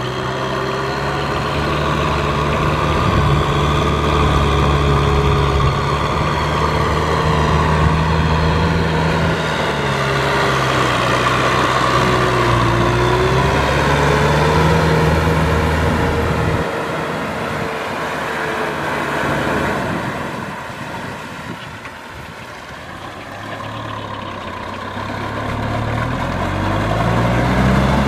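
Tractor engine running hard under load, its pitch wavering. It drops and eases off about two-thirds of the way through, then climbs again near the end.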